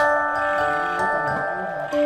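Background music: a melody on chiming mallet percussion like a glockenspiel, with held notes that change every half second or so.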